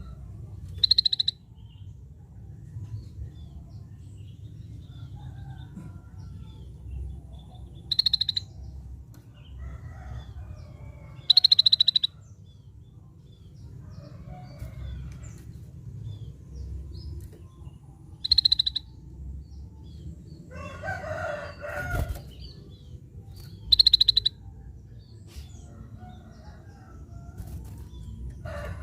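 Scaly-breasted bulbul (cucak bersisik) giving five short, loud, high buzzy calls, each a quick rattle, spaced a few seconds apart. A lower, harsher call comes about two-thirds of the way through.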